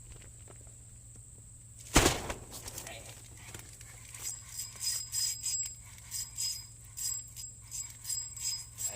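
A sudden sharp knock about two seconds in, then irregular bursts of light metallic jingling, several a second, over a steady high-pitched insect drone.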